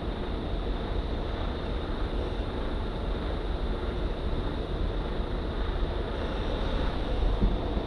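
Steady low engine rumble of an articulated lorry creeping slowly around a tight corner close by, mixed with a motorcycle's parallel-twin engine idling and some wind noise on the microphone.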